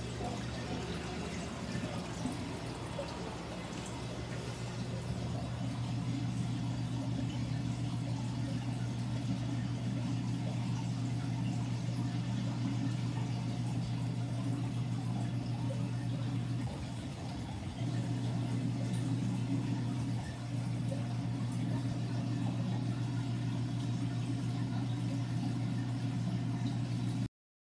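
Steady low hum with a soft water-like hiss from running saltwater aquarium equipment; it dips briefly twice in the second half.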